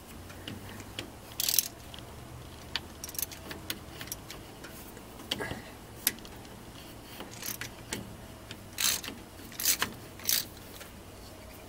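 Hand ratchet with an extension clicking in short, irregular runs as the thermostat housing bolts are tightened down on a Chevy 350 V8. The strongest bursts of clicks come near the end.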